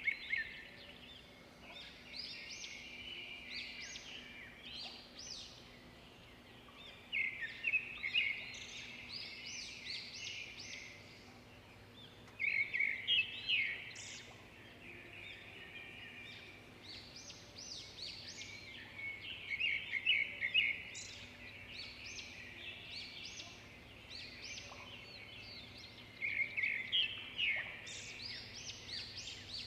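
Bird-like chirping in bursts that peak about every six or seven seconds, over a faint steady hum.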